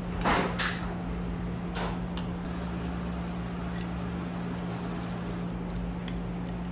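A steady low hum runs throughout, with two short noisy scrapes about a quarter and half a second in, another near two seconds, and faint ticks near four seconds.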